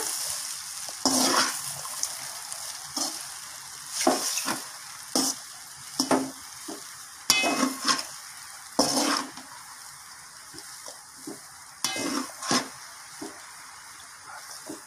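Perforated steel spatula scraping and clinking against a steel kadai as cooked rice is stirred into soya chunk masala, over a light frying sizzle. The strokes come irregularly, louder through the first nine seconds, then lighter taps.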